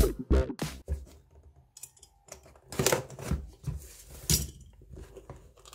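Box cutter slicing through packing tape on a cardboard parcel, heard as a few short, separate scrapes and rustles of the cardboard.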